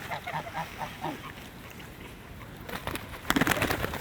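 Geese and ducks calling: a quick run of short honking calls in the first second, then quieter. About three seconds in comes a louder, noisy burst of sound.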